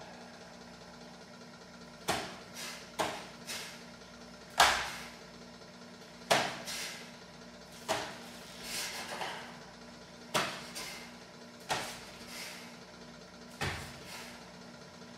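Sharp slaps and thumps, about a dozen at irregular intervals, each with a short room echo. They come from a barefoot White Crane kung fu practitioner's sudden strikes and steps during a Sanchin form. The loudest comes a little under five seconds in.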